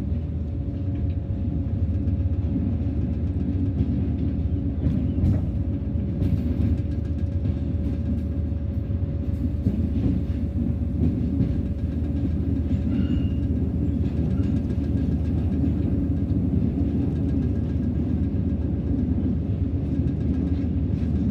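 BB 60000 diesel locomotive running steadily under way, hauling a loaded freight train: a constant low engine drone with a faint steady whine above it and a few light clicks from the track.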